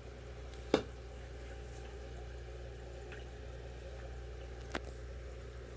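Quiet room with a steady low hum, broken by one sharp click a little under a second in and a softer click near the end.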